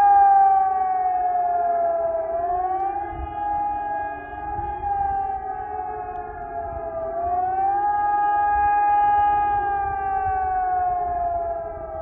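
Civil defence sirens sounding the rising-and-falling howl of the German public warning signal ('Warnung der Bevölkerung'). The tone holds high, sinks slowly, then swings quickly back up, about every four and a half seconds, and fades near the end.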